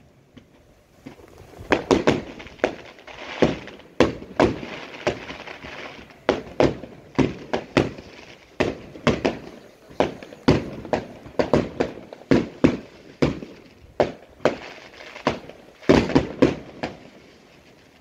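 Aerial firework shells bursting in quick succession: sharp bangs, often several a second, starting after about a second of quiet, with stretches of crackling between them.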